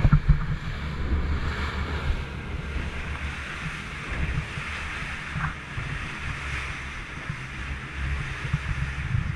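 Motorboat under way at speed: wind buffeting the microphone in uneven gusts over the steady hiss of the wake churning beside the hull.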